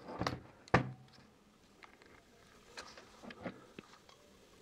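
Faint handling noises: light clicks and knocks from a multimeter test lead being connected and a cordless drill being picked up, with one sharper click just under a second in. The drill motor is not running.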